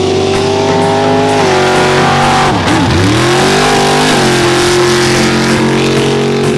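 Pickup truck engine revving hard while racing; the pitch drops sharply about two and a half seconds in and then climbs back, as the throttle is lifted and reapplied.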